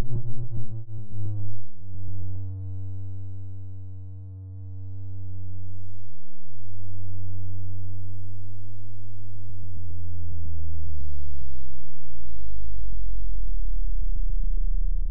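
Synthesizer music: a low droning synth tone with slowly gliding pitch. It fades down about four seconds in and then swells back.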